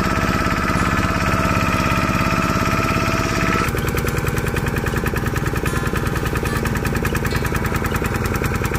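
Motorboat engine running steadily, a fast even beat of firing strokes. About three and a half seconds in, the sound changes abruptly, as if from a cut.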